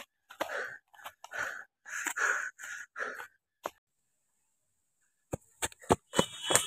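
Short, rasping, breathy sounds repeated roughly every half second, then a pause, then quick running footsteps crunching on dry leaves and grass near the end.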